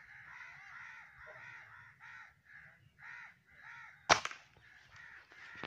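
A bird repeats a harsh cawing call about twice a second. About four seconds in, a single loud shotgun shot goes off at a dove, followed by a few light knocks and clicks.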